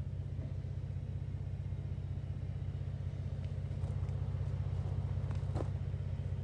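A vehicle engine idling steadily, a low, even drone that does not change.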